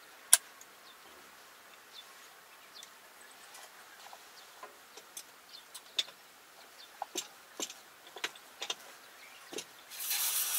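Scattered sharp metallic clicks and taps of hand tools on a crawler machine's track assembly, irregular and unhurried, the loudest about a third of a second in. A short rasping, scraping noise near the end.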